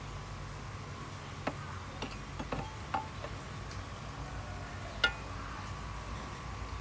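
A few scattered light clicks and clinks as santoku knives are handled in the hand, the sharpest about five seconds in, over a faint steady hum.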